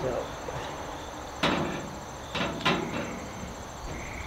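Three short metallic knocks on a smoker's sheet-metal cabinet, one about a second and a half in and two close together a second later, as a damper is bolted on by hand with a screwdriver. Insects chirr faintly behind.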